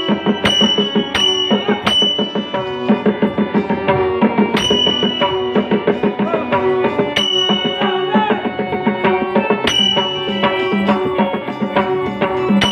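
Live Dashavatar folk-theatre accompaniment: a harmonium holding a melody over a hand drum's strokes, with ringing cymbal strikes that come quickly at first and then about every two and a half seconds.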